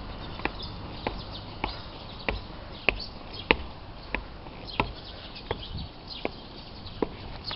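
Footsteps on the planks of a small wooden footbridge: sharp knocks at a steady walking pace, about three steps every two seconds.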